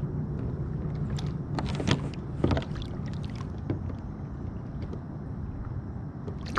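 Water splashing and sloshing around a hand holding a largemouth bass by the lip at the surface as the fish is released, with a few short splashes about two seconds in and another later. A steady low hum runs underneath.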